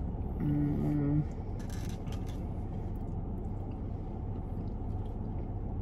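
Steady low hum inside a car's cabin, with a short hummed "mm" from a person about half a second in and a few faint clicks of a plastic fork against a foam takeout container.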